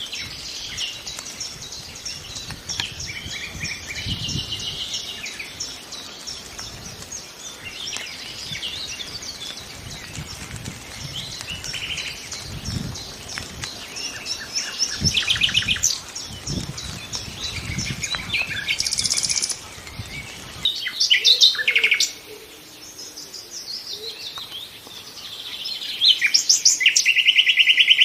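Nightingale singing varied phrases of whistles and chirps broken by fast trills of repeated notes. The loudest trills come about halfway through, about three-quarters through and near the end. A faint low rumble lies underneath until about three-quarters through.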